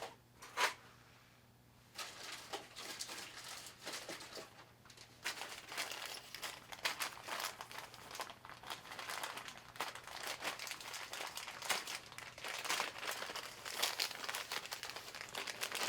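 Plastic packaging crinkling and rustling as it is handled, steadily from about two seconds in, after two short knocks at the very start.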